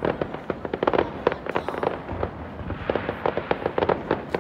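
Fireworks display going off: rapid sharp bangs and crackling pops, densest in a flurry in the first second and again around three to four seconds in.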